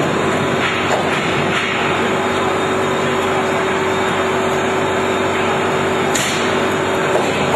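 Steady, loud running noise of workshop machinery with a constant hum-like tone, and a short hiss about six seconds in.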